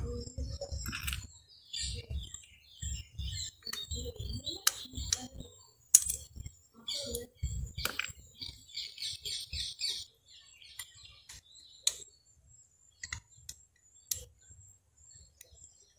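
Sharp little clicks and taps of steel E-clip circlips being pried off the shoe pivot pins of a Hero Pleasure scooter's centrifugal clutch with a small screwdriver, with knocks from handling the clutch assembly. Birds chirp in the background, with a quick run of chirps about nine seconds in.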